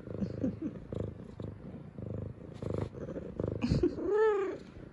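F2 Savannah cat purring steadily while being stroked, giving one loud meow that rises and falls near the end.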